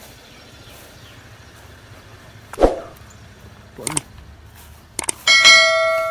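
Subscribe-button animation sound effect. Two short pops about a second apart are followed by a quick double mouse click and then a notification-bell ding that rings on and fades.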